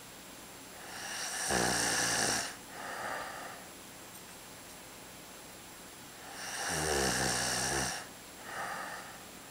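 A man snoring: two loud, rattling snores on the in-breath about five seconds apart, each followed by a softer, shorter breath out.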